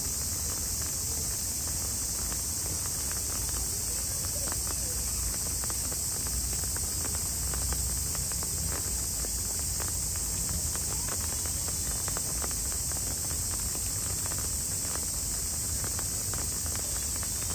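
Steady rain: a constant high hiss with many faint scattered drip ticks.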